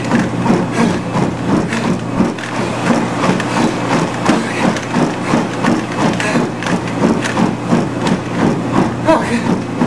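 Treadmill running at 10 mph: a steady motor hum with running footfalls landing on the belt about three times a second.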